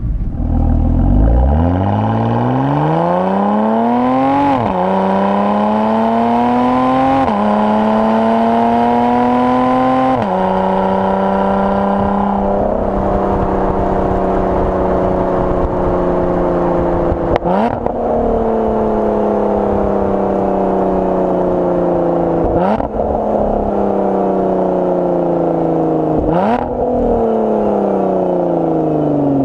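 Lotus Evora 400's supercharged 3.5-litre V6 accelerating hard through the gears with the automatic gearbox. The revs climb and drop at three upshifts. The car then slows, and three rev-matched downshifts each blip the revs with a sharp crack from the exhaust, before the engine settles toward idle.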